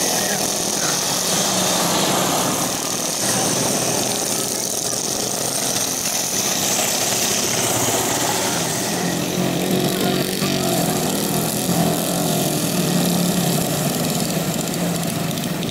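Small engines of several racing lawnmowers running at speed with a high whine, which fades after about nine seconds as the mowers stop and their engines idle.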